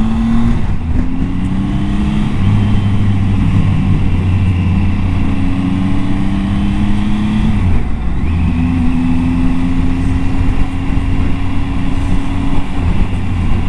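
Triumph Tiger 800 XCA's three-cylinder engine pulling on the road, heard from on the bike with wind rush on the microphone. The engine note climbs gradually and steps up several times, with a brief dip about eight seconds in.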